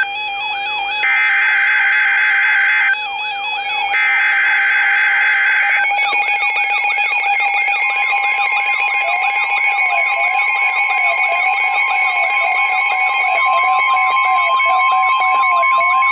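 NOAA Weather Radio alert over a weather radio receiver: two screeching SAME data-header bursts in the first six seconds, then the steady 1050 Hz warning alert tone from about eight seconds in. Under both, the receiver's own rising-and-falling alarm repeats, signalling a newly issued severe thunderstorm warning.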